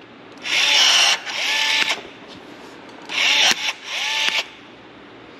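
Milwaukee cordless rivet tool pulling a pop rivet through aluminium sheet, its motor whirring in two short runs twice over, each run rising in pitch and then holding. A sharp snap comes about three and a half seconds in, as the rivet's mandrel breaks off.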